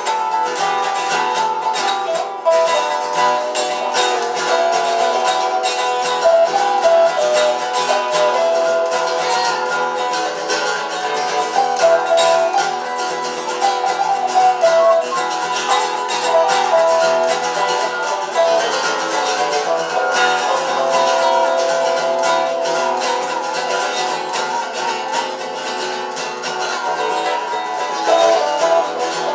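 Instrumental passage on acoustic plucked string instruments: a picked melody line of short and held notes over a steady accompaniment.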